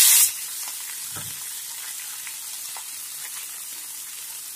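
Mixed leafy greens frying in hot oil in a pan: the loud sizzle of the greens just dropped in falls off sharply in the first moment to a steady, quieter sizzle. A few faint knocks of stirring come through it.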